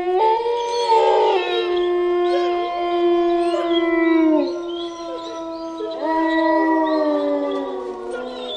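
Wolves howling in chorus: long, held howls overlap, with shorter wavering calls over them. A new howl rises about six seconds in and falls away near the end.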